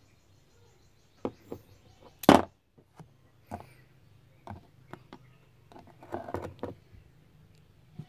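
Irregular clicks and taps of a small rough stone and metal tweezers knocking on a hard surface as the stone is set down and picked up again, the loudest knock about two seconds in and a quick cluster of taps near the end.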